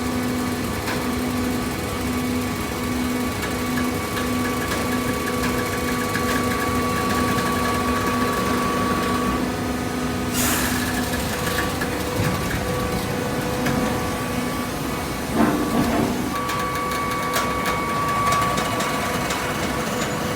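Hydraulic waste-paper baler running with a steady motor-and-pump hum and a low throb that pulses in the first half. A short hiss comes about halfway, and a louder clunk follows about three-quarters in.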